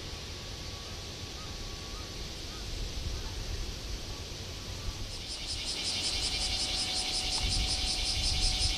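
A cicada starts up about five seconds in, a rapidly pulsing high buzz that becomes the loudest sound, over a steady low rumble of outdoor background noise.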